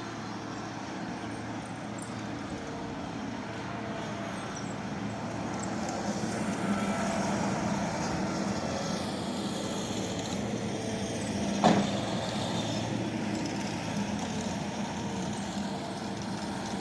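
Skid steer engine running steadily, growing louder about six seconds in, with one sharp knock about two-thirds of the way through.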